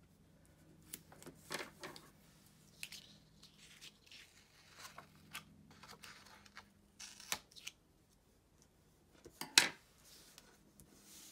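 Paper pages and strips of washi tape being handled on a desk: scattered short rustles and crinkles, the loudest a sharp crackle about nine and a half seconds in.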